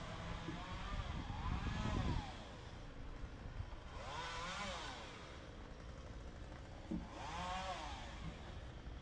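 Motor vehicles passing one after another, about three in a row. Each comes as a swell of engine and road noise whose pitch rises and then falls; the first, about two seconds in, is the loudest, with a low rumble.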